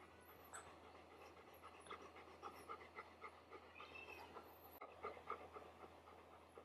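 Adult golden retriever panting softly with a quick, even rhythm of about three to four breaths a second.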